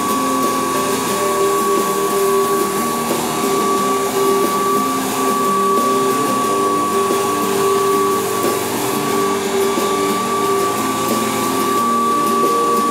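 Kent rotary floor machine running steadily, its pad scrubbing wet stripping solution on vinyl tile to strip off the old wax. The motor gives a steady high whine over a constant hiss.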